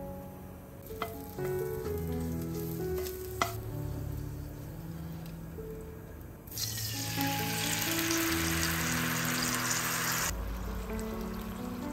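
Garlic cloves sizzling gently in hot oil in a frying pan, with two sharp clicks. About six and a half seconds in, tomato sauce hits the hot oil and sets off a much louder, hissing sizzle that cuts off suddenly.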